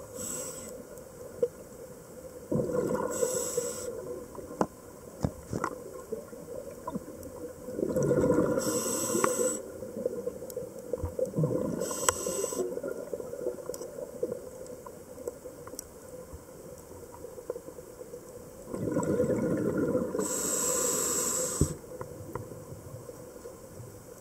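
Scuba diver breathing through a regulator underwater, heard through the camera housing: four breaths several seconds apart, each a hiss with a rush of exhaled bubbles. A steady low hum and scattered sharp clicks run underneath.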